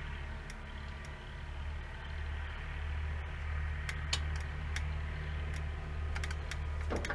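Scattered light metal clicks and taps as an E-clip is fitted onto the wheel axle shaft to hold the wheel on, over a steady low machine hum.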